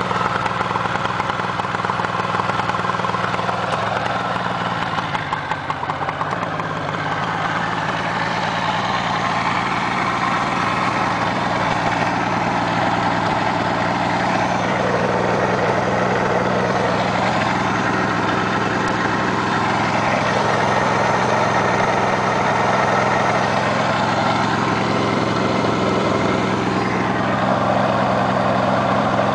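1975 Suzuki GT750's liquid-cooled two-stroke three-cylinder engine idling steadily, heard close to its chrome exhausts.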